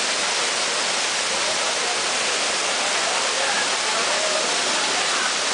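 Waterfall: a steady, continuous rush of falling water.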